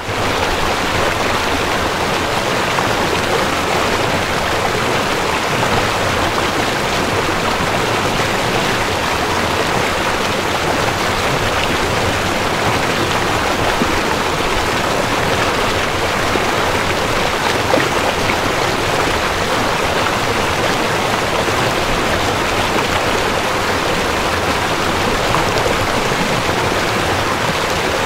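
River water flowing over stones: a steady, even rush with no breaks.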